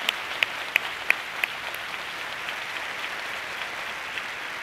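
Audience applauding. For the first second and a half a few sharp claps stand out in a steady rhythm, about three a second, and the applause dies down near the end.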